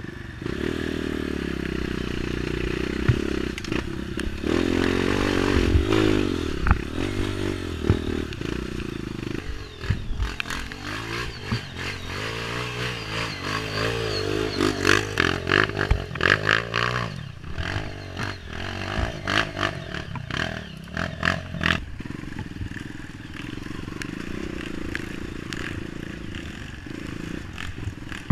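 Honda CRF230 dirt bike's single-cylinder four-stroke engine revving up and down over and over as the bike is ridden. Through the middle there are many sharp clattering knocks and scrapes from the bike.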